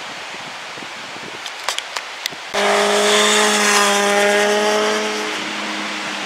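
A motor vehicle engine held at high, steady revs cuts in suddenly about two and a half seconds in. It keeps one pitch, and its upper tones fade near the end. Before it there is wind-like rushing noise with a few clicks.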